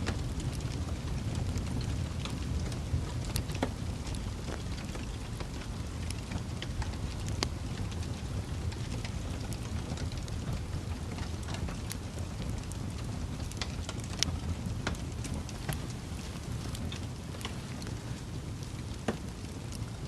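Wood fire burning in a fireplace: a steady low rush of flame with irregular sharp crackles and pops from the burning logs, a few of them louder.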